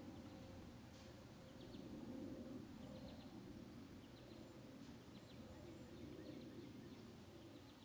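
Quiet outdoor ambience: faint, scattered short bird chirps over a low, steady hum.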